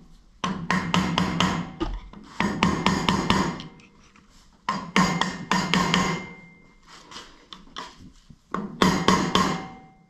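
Steel tool clicking and scraping rapidly on a U-joint bearing cap in a steel driveshaft yoke, in four short bursts, with the driveshaft ringing under the clicks.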